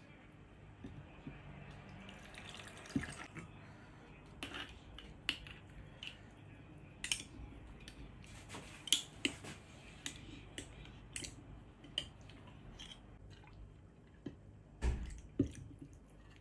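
Metal spoon clicking against a glass jar while pressing lime pieces down, with pickling liquid dripping and pouring from a clay pot into the jar. There are two louder knocks near the end.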